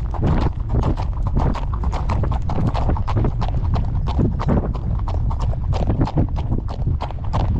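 A horse's hooves clip-clopping in a steady rhythm, about three or four strikes a second, over a constant low rumble.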